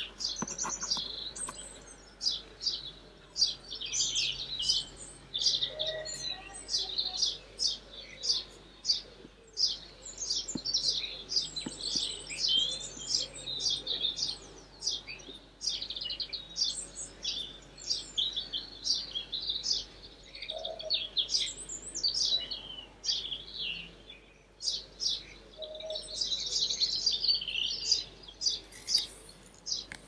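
Several birds singing, a dense run of quick, high chirps and short trills overlapping one another.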